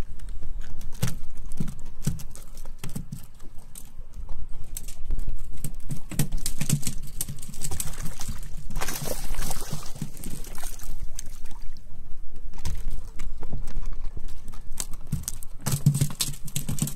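Irregular knocks and clatter on the deck of a fishing boat, over a low steady rumble, with water sloshing against the hull.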